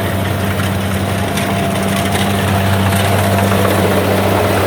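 Kubota rice combine harvester running: a loud, steady engine drone with a thin, even whine above it.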